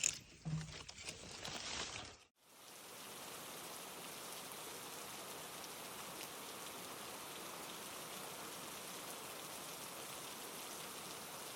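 Brief rustling and scraping of plants and soil being handled. About two seconds in, this cuts to a steady hiss of rain falling, which fades in and fades out near the end.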